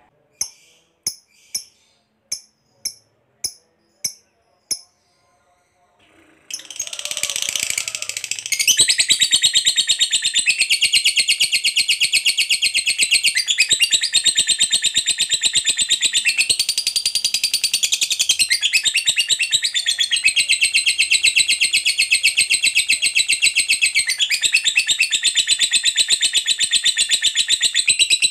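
Lovebird giving about seven short, sharp chirps at an even pace, then after a brief pause breaking into a long, unbroken, rapid high-pitched chatter, the 'ngekek panjang' song, which shifts pitch every few seconds.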